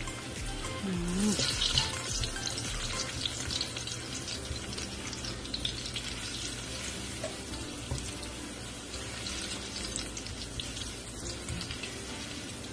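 Chopped garlic sizzling in a little hot oil in a nonstick wok as it is sautéed and stirred with a wooden spatula: a steady crackling hiss.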